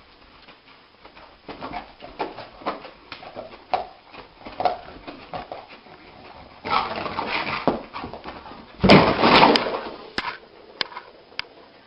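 A dog making a series of short, irregular sounds, growing into a louder outburst about nine seconds in, followed by a few sharp clicks.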